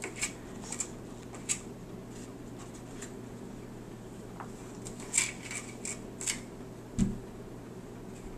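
A toddler's hands tapping on a window sill and glass: scattered light taps, with a cluster of them about five to six and a half seconds in, then a duller thump about seven seconds in. A steady low hum runs underneath.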